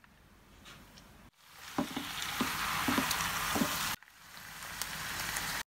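Wontons, greens and meatballs stir-frying in a pan, sizzling steadily, with a handful of sharp knocks from the wooden spatula against the pan. The frying starts suddenly about a second in and continues across two cuts, quieter in the last part.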